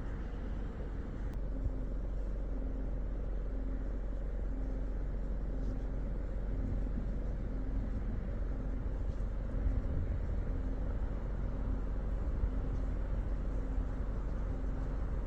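Land Rover Defender 110 on the move: a steady low engine and road rumble with no pauses.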